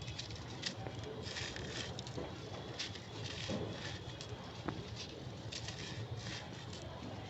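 Crunchy, brittle material being crumbled, making a continuous crackling crunch in uneven bursts with a few sharper snaps.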